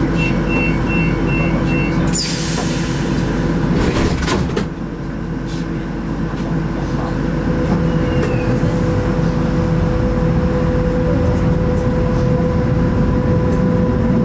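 Lisbon Metro train: a short two-tone beeping signal, then a loud hiss and a couple of knocks a couple of seconds in, typical of the doors closing. After that comes the train's steady motor hum and whine over the running rumble.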